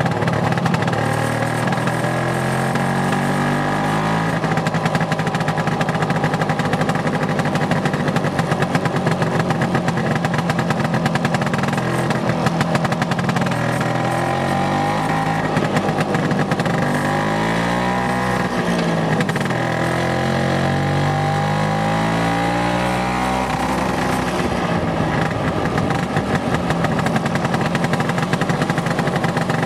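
Vespa PX scooter's single-cylinder two-stroke engine running on the move, its pitch rising and falling several times as it accelerates and slows, then holding a steady note near the end.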